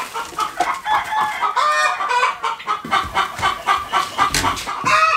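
Chickens clucking, a steady run of short calls one after another.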